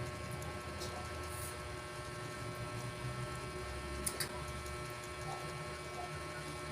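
Steady low hum of room tone with fixed, even pitches, and two faint clicks about four seconds in.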